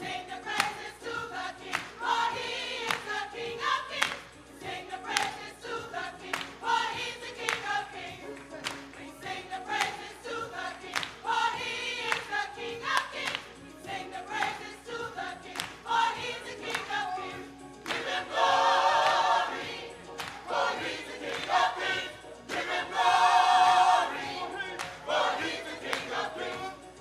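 Gospel choir singing with band accompaniment and a steady beat, swelling into loud held chords twice in the second half.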